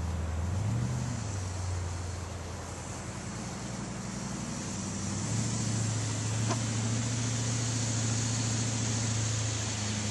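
Monster buggy's engine running as the buggy drives closer, its pitch rising briefly about a second in, then holding steady and growing a little louder.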